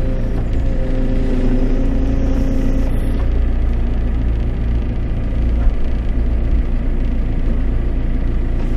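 JCB telehandler's diesel engine running steadily, heard from inside the cab. A higher steady hum rides over it for the first three seconds.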